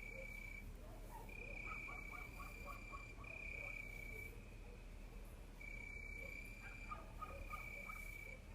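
Crickets chirping: trills at one steady high pitch, each about a second long, broken by short pauses. Twice a lower call of quick pulses, about five a second, joins in.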